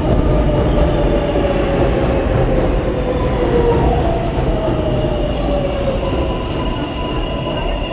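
New York City subway train running alongside the platform: a loud, steady rumble of wheels and cars, with high whining tones that slowly fall in pitch as the train slows.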